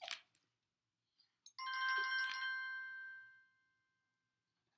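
Electronic chime alert tone from a phone: a quick ripple of bright notes that rings on and fades out over about two seconds, starting about a second and a half in and beginning again at the very end. A brief clink sounds right at the start.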